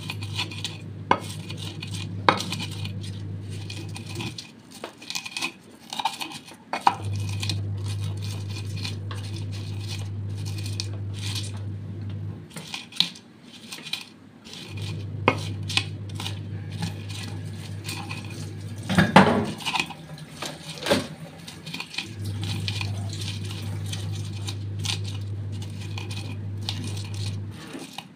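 Stone pestle knocking and grinding small green chilies against a terracotta mortar, crushing them coarsely, in irregular strokes with a burst of louder strikes about two-thirds of the way through. A low steady hum switches on and off several times behind it.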